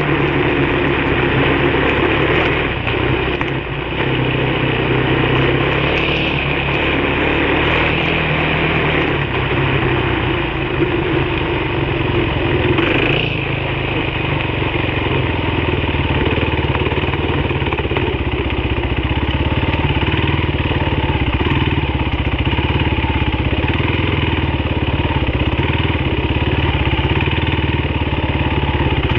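Engine of an off-road vehicle running steadily as it rides along a dirt trail, with wind and trail noise mixed in; the level dips briefly about four seconds in.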